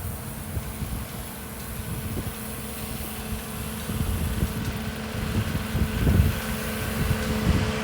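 A large vehicle's engine running with a steady low hum, growing louder from about halfway through, as a heavy delivery truck draws near.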